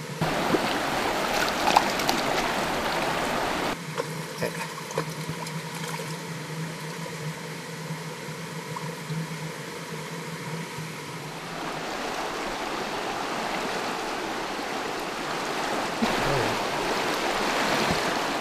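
Stream water rushing and trickling, with scattered small clicks and a steady low hum that stops about two-thirds of the way through. The water is louder in the first few seconds, drops suddenly, and swells again from about the middle on.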